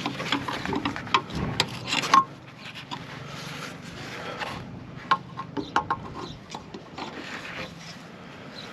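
Rubber exhaust hanger ring being worked onto its metal hook by hand: rubbing and scraping with sharp clicks and knocks, busiest in the first two seconds, then quieter scattered clicks.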